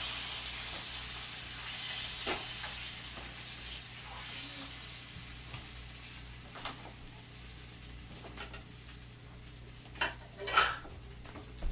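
Hot oil sizzling in a frying pan, the sizzle dying away steadily, with a few clinks and knocks of utensils and dishes; the two loudest knocks come near the end.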